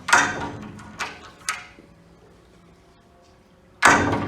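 A frameless glass pool gate on worn Fethers/Bestko hinges is swung and knocked against its latch. There is a loud clank with ringing right away, two lighter clicks about a second in, and another loud clank near the end. The hinges' soft close has failed and the gate is very stiff.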